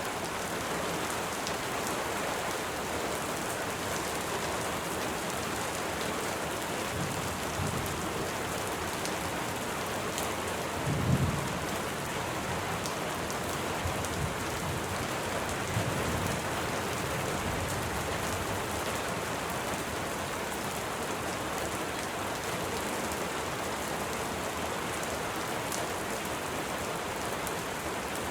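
Steady rain falling with fine drop ticks, broken by a few short, low rumbles of thunder; the loudest comes about eleven seconds in.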